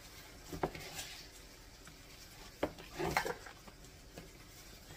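Hands kneading a ground chicken and breadcrumb mixture in a plastic bowl, with a few light knocks against the bowl: one about half a second in, and a couple more around two and a half to three seconds in.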